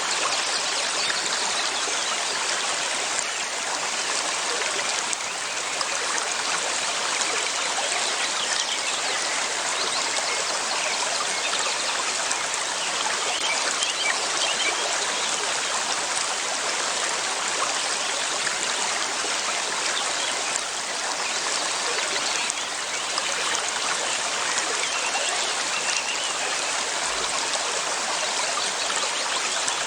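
River water flowing steadily over rocks, an even rushing and trickling.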